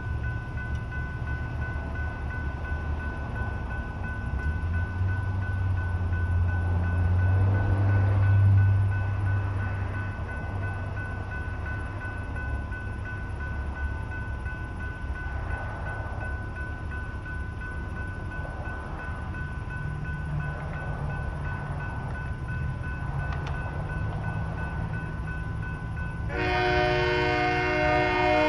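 Electronic railroad crossing bells ringing steadily, warning of an approaching train. A low rumble swells and fades about eight seconds in. Near the end an RTD commuter train's horn starts sounding loudly, several tones at once, and is still going at the end.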